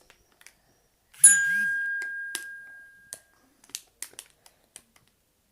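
A single bell-like ding, struck once about a second in and ringing out as it fades over about two seconds, among a few faint clicks.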